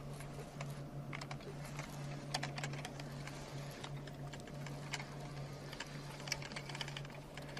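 Fishing reel clicking irregularly while a bass is fought on a hard-bent rod, over a steady low hum.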